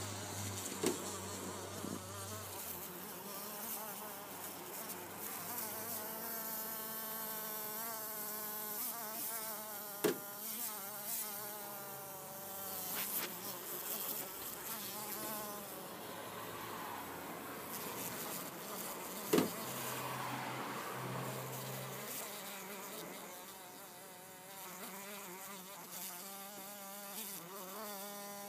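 A fly trapped in a spider web buzzing its wings as it struggles, a wavering drone that comes in spells, strongest around the middle and again near the end. Three sharp knocks stand out.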